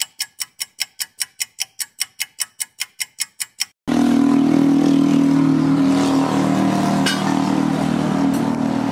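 Rapid, evenly spaced ticking, about five ticks a second, stops just under four seconds in. It gives way to a loud, steady mechanical hum with a low pitched drone.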